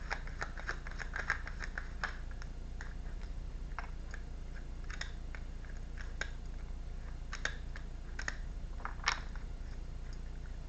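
Tarot cards being handled: a quick run of papery clicks and snaps during the first couple of seconds, then scattered single clicks as cards are shuffled and laid down. A faint steady low hum lies underneath.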